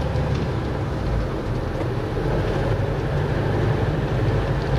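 Small bus driving along a road, heard from inside the cabin: a steady low engine drone with road noise.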